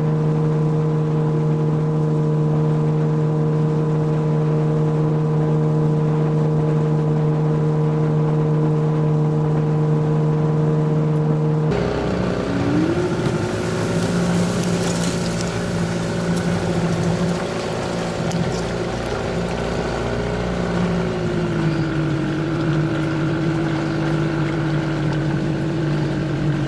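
Tohatsu 9.8 hp outboard motor running steadily with the boat under way. About twelve seconds in, the sound changes abruptly to a noisier engine note that dips and rises in pitch a couple of times, with wind and water rushing.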